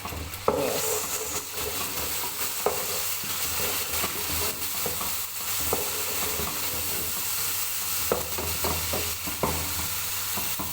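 Chopped tomatoes going into hot oil with frying onions in a saucepan, sizzling steadily, the sizzle jumping up about half a second in. A spoon stirs and clicks against the pan now and then.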